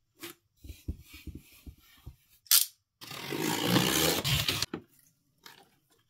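A cardboard shipping box being handled and opened: scattered light taps and knocks, one sharp short rip about two and a half seconds in, then about a second and a half of loud tearing and scraping of cardboard and packing tape.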